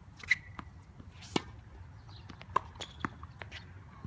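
Tennis ball struck by rackets and bouncing on a hard court during a rally: a series of sharp knocks at uneven intervals, the loudest about a third of a second in.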